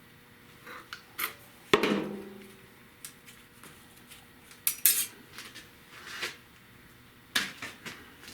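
Hand shears cutting and handling a sheet-steel patch piece: a handful of separate sharp metallic clinks and clanks. The loudest comes a couple of seconds in, with a brief ring.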